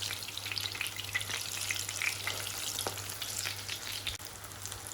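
Aubergine slices frying in hot oil in a pan: a steady crackling sizzle with many small quick pops, over a faint low hum.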